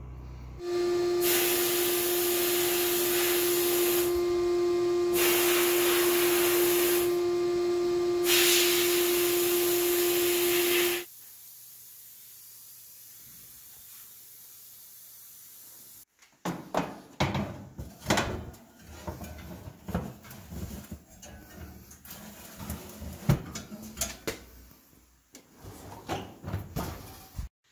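Electric angle grinder with a sanding disc running at a steady pitch, with three loud hissing passes as the disc grinds weld spatter off a steel engine mount; it cuts off about 11 s in. Near the end, irregular clanks and rattles come as a kitchen oven door and its wire rack are handled.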